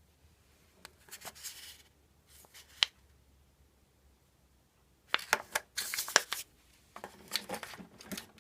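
Plastic drink pods and their packaging being handled and set down: bursts of rustling and crinkling with clicks, including one sharp click about three seconds in and a longer, busier stretch of rustling in the second half.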